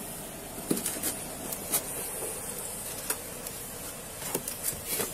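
Handling noise at an officer's body camera: a scattered handful of light clicks and knocks over a steady faint hiss.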